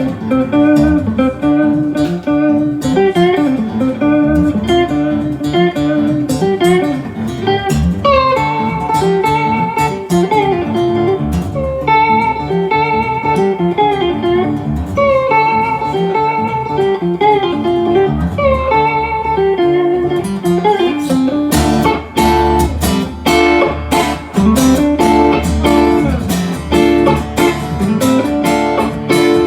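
A band playing live in an instrumental break, with a lead guitar line over strummed rhythm guitar. About 21 seconds in, the playing grows fuller and heavier.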